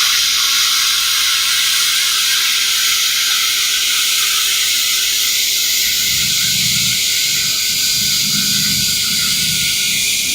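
TIG welding arc from an AHP AlphaTIG 200x, burning steadily with an even, loud hiss while the weld puddle is run. A low rumbling joins about six seconds in.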